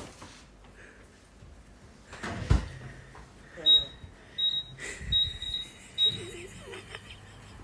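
A sharp thump, then a run of short, high electronic beeps at roughly even spacing over the next few seconds.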